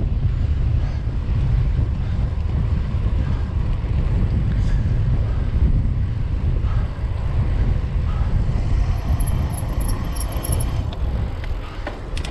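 Wind buffeting the microphone of a camera on a moving road bike: a steady low rumble. A few faint clicks near the end.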